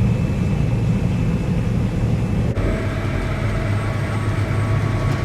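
Engine of heavy harvest machinery running steadily, a loud low drone. The sound changes abruptly about two and a half seconds in, after which a faint steady whine runs over the drone.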